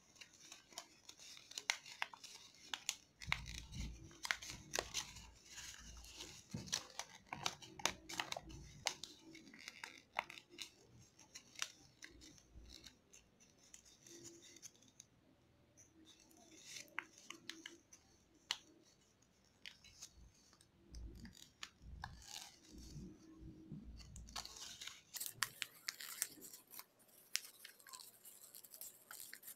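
White origami paper being folded and creased by hand: irregular crinkling, rustling and sharp crackles of the paper, with dull low bumps now and then from the handling.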